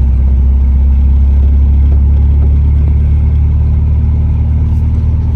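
1993 Nissan 240SX's engine pulling steadily in third gear on a road test, a loud low hum that holds an even pitch.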